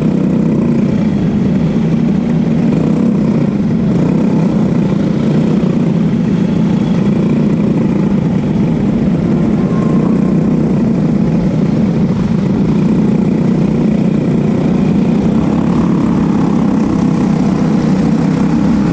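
Racing kart's single-cylinder four-stroke engine running steadily and loud, its pitch holding fairly even.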